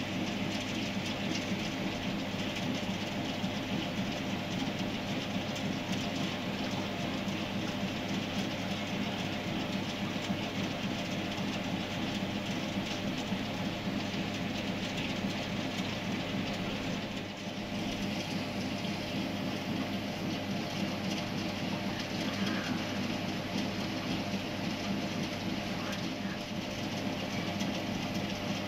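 A steady mechanical drone with a constant hiss over it, unbroken except for a brief dip about two-thirds of the way through.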